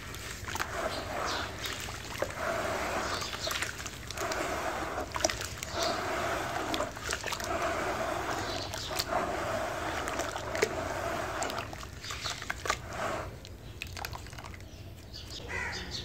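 Wet red dirt being squeezed and churned by hand in a bowl of water, making sloshing, squelching sounds with many small splashes and crackles. The churning eases off near the end.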